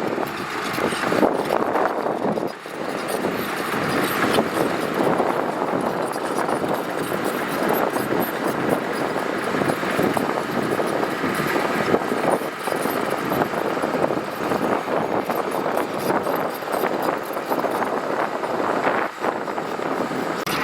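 Heavy earthmoving machinery running steadily, a diesel engine with a continuous rough, dense noise.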